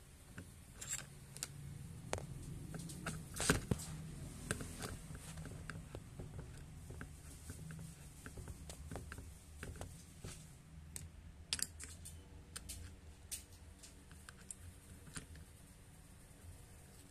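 Irregular small clicks and taps of a screwdriver working a screw through a metal caster's mounting plate into a plastic base, with one sharper knock about three and a half seconds in.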